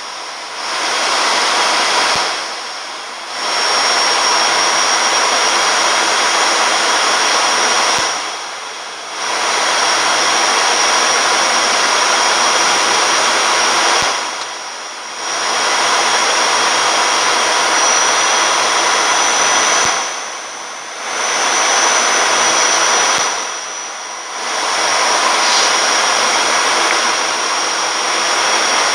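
Cockpit noise of an ATR 72-600 descending on final approach: a steady hiss of airflow and engine noise from its Pratt & Whitney PW127M turboprops, with a thin high whine. The level dips briefly about every six seconds.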